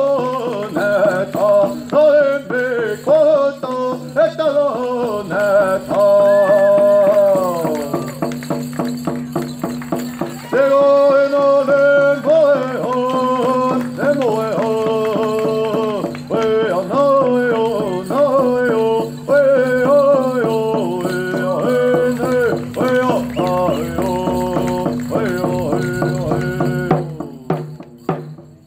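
Hoop dance song: a singing voice chanting phrases that waver and fall in pitch, over a steady drumbeat and a low steady hum. The song drops away near the end.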